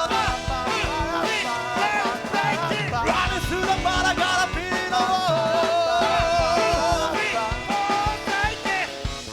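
Live rock band playing: a bending, wavering lead line over driving drums and bass, with no lyrics sung.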